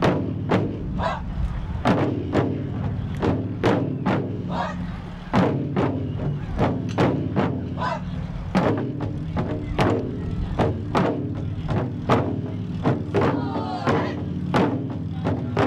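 Ensemble of Japanese taiko drums struck with wooden sticks in a steady, driving rhythm, about two strokes a second, each stroke leaving a low ring.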